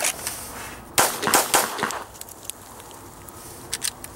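Handgun fired three times in rapid succession about a second in, the first shot followed quickly by a pair, as a 3-yard drill of three rounds within three seconds.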